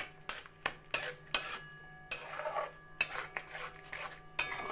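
A spatula stirring thick carrot halwa in a kadai, knocking and scraping against the pan about every half second, with a faint metallic ring after the knocks, while the ghee is mixed in.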